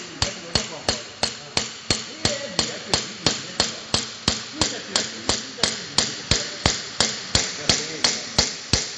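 Hammer blows on the steel turret of a ZP9B rotary tablet press, struck in a fast, even rhythm of about three a second, as its dies and punches are knocked out for a mould change.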